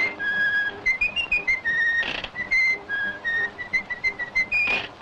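Outro music carried by a whistled melody, a bouncy tune of short held notes over a light accompaniment, with a brief rushing whoosh about two seconds in and another near the end.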